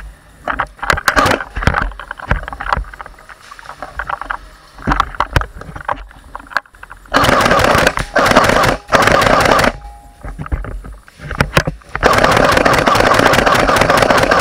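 Two long bursts of rapid full-auto airsoft rifle fire at close range, each lasting two to three seconds, the second about five seconds after the first. Before them come scattered light knocks and footsteps.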